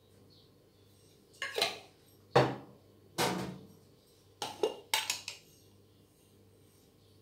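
Glass jars with plastic lids being handled and set down on a countertop: several short, sharp knocks and clatters, the loudest about two and a half seconds in.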